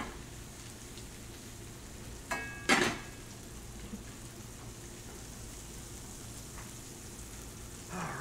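Fish fillets and garlic sizzling in butter in two skillets on a gas range, a steady frying hiss. A brief loud clank comes about two and a half seconds in.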